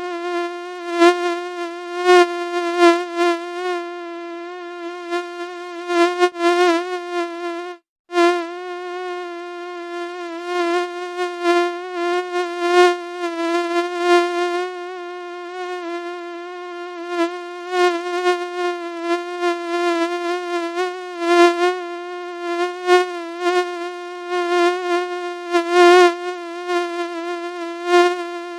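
Mosquito's high buzzing whine in flight, one steady pitch that wavers slightly and swells and fades in loudness. It cuts out briefly about eight seconds in and resumes, as in a looped recording.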